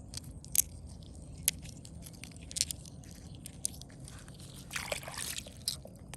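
Scattered sharp clicks and crunches, with a longer scraping crunch about five seconds in, over a low steady rumble.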